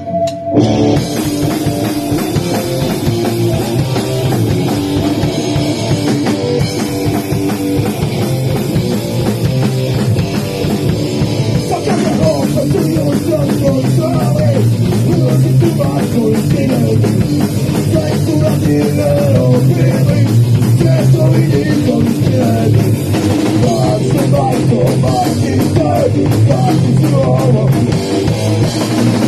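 Punk rock band playing an instrumental passage: an electric guitar and a drum kit played loud together, with no singing. A brief gap right at the start, then the band plays straight through.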